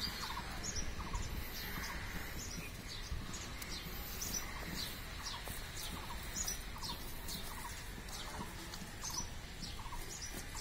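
Birds calling in the background: one bird gives a short low call over and over, while others add thin high chirps.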